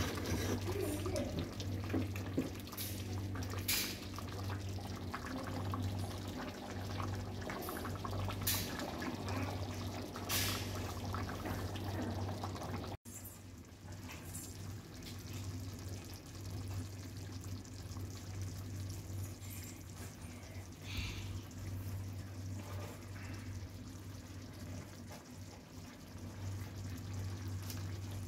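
Pot of biryani rice and mutton in its cooking liquid simmering and bubbling over a steady low hum. In the first half a few light clinks of the ladle against the aluminium pot.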